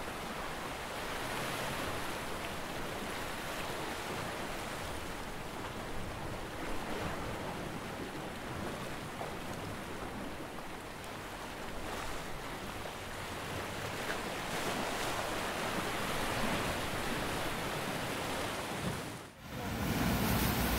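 Sea waves washing on the shore, a steady surf wash. It dips away for a moment near the end, then comes back louder.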